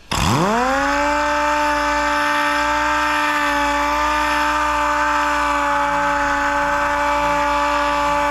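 Air-powered sander starting up for wet sanding chrome, its whine rising quickly to a steady pitch and running on evenly.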